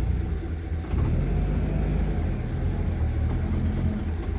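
A vehicle or machine engine running at low revs, rising to a steady louder drone about a second in as it is put under load.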